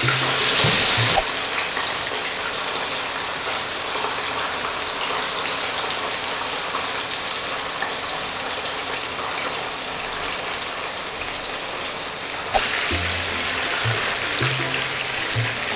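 Chicken pieces frying in hot oil in a frying pan, a steady sizzle that is loudest in the first second. Background music with a bass line comes in near the end.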